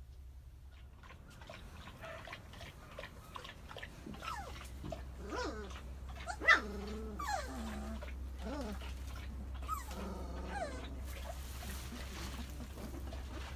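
Great Pyrenees puppies whining and yelping in a run of short cries that rise and fall in pitch. A sharp tap comes about six and a half seconds in.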